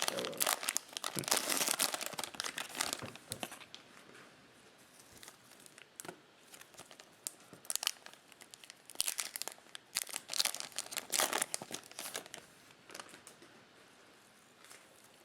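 Cellophane wrapper of a baseball card cello pack crinkling as it is torn open and handled, dense for the first few seconds, then in short scattered bursts.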